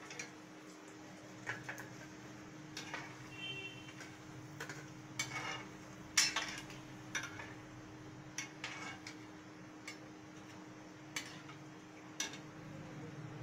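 Steel slotted spoon clinking and scraping against a steel kadhai while turning and lifting koftas frying in oil. The clinks come irregularly, a few seconds apart, and the loudest is about six seconds in.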